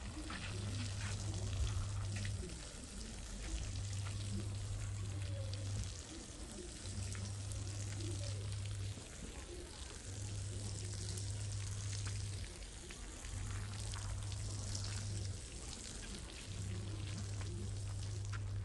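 Soapy water pouring from a watering can onto a wet rug, with a steady hiss of water and foam. Underneath, a low hum switches on for about two seconds and off for about one, over and over.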